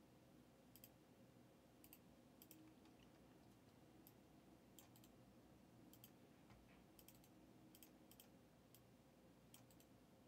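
Near silence with faint, scattered clicks of a computer mouse, often in quick pairs or threes, about once a second.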